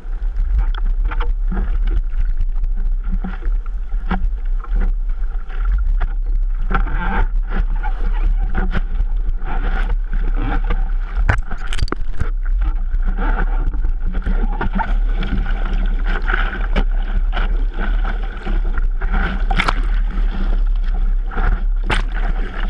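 Seawater sloshing and splashing against a surfboard and a nose-mounted waterproof action-camera housing as a surfer sits in whitewater and then paddles. There are frequent sharp splashes and drips over a steady low rumble.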